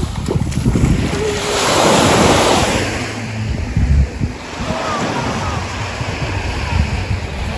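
Sea waves washing onto the beach, one wash swelling up about two seconds in, with wind buffeting the microphone.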